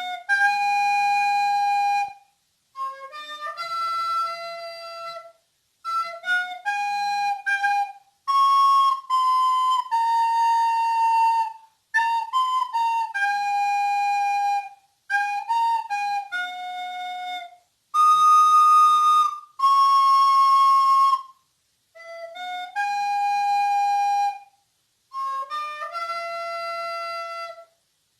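Soprano recorder playing a solo melody in short phrases of two to three seconds, each followed by a brief silence.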